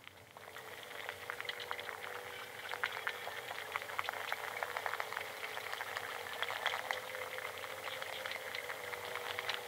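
Underwater recording of a school of fish in Lake Geneva: a dense, continuous crackle of many tiny clicks and pops, with a faint steady tone underneath. It fades in over the first couple of seconds and is played back over the hall's speakers.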